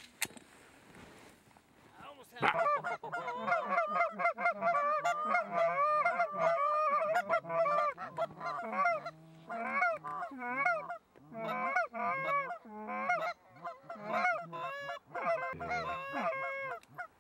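Canada goose honks and clucks in a rapid, nearly unbroken string, starting about two seconds in and running with a short break until just before the end, as a flock comes in to land.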